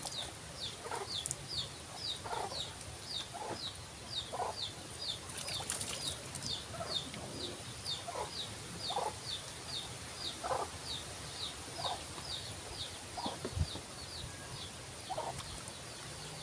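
Chickens clucking in short calls about once a second, over a high, quick chirp that repeats evenly two to three times a second throughout. A brief hiss of noise comes about five seconds in.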